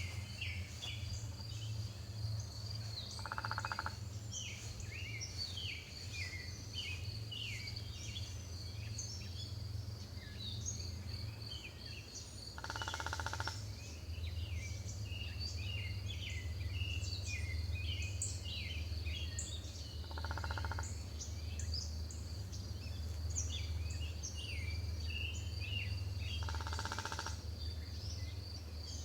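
Woodpecker drumming: four short rapid rolls of even strikes, several seconds apart. Under them, many songbirds chirp against a steady high pulsing trill and a steady low hum.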